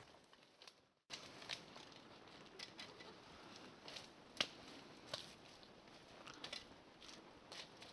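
Faint, scattered crunches and snaps of footsteps through snow and dry brush. There is a short dropout to near silence about a second in.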